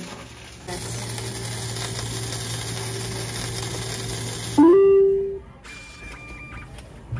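Lidl reverse vending machine for deposit bottles running its intake conveyor with a steady hum as it takes in a bottle. Then comes a loud electronic beep that slides up in pitch and holds for under a second, followed by the receipt printer running briefly near the end.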